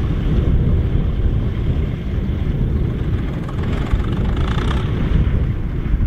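Vintage diesel tractor engine running steadily under load while pulling a plough through hard soil.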